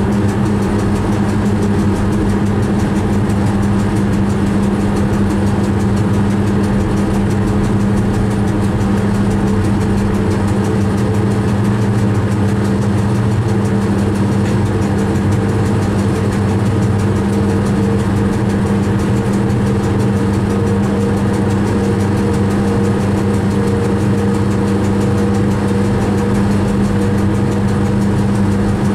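Train running along the line, heard from inside the driver's cab: a steady low hum from the traction equipment over continuous rolling noise, with a higher note in the hum growing clearer about two-thirds of the way through.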